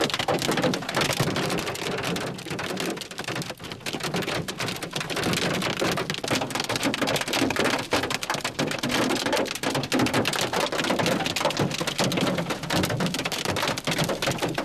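Rain and hail pelting a car's windshield and roof, heard from inside the car: a dense, irregular patter of hits at a steady level.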